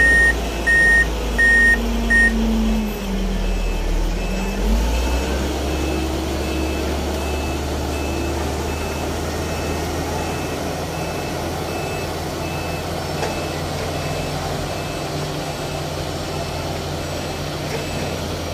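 A heavy construction machine's diesel engine running, with a backup alarm beeping at an even pace. The loud beeps stop about two seconds in, while a fainter beeper keeps going. Around four seconds in, the engine's pitch drops and then climbs again.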